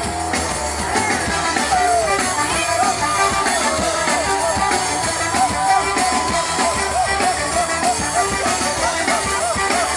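A rock band playing live, with guitar and drums and a melodic line sliding up and down in pitch.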